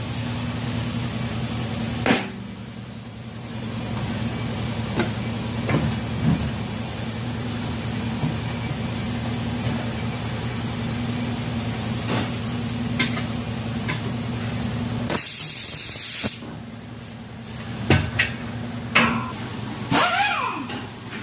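Tire-shop work: a steady machine hum runs for about fifteen seconds and stops. A loud hiss of compressed air follows for about a second, then a few clicks and knocks of tools and metal.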